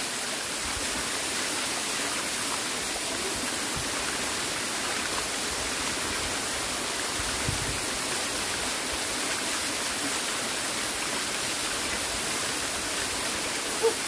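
Small waterfall pouring down a rock face onto stones: a steady, hissing rush of falling water.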